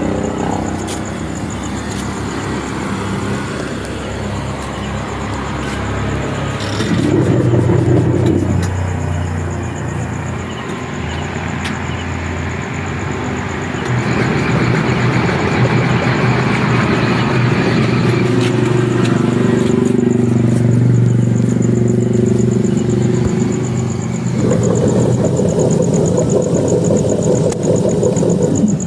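A small engine running steadily, its speed rising and falling several times, with a thin high whine throughout.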